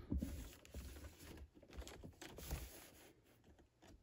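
Cardboard action-figure box with a plastic window being handled and turned over in the hands: irregular rustling and light knocks that die away near the end.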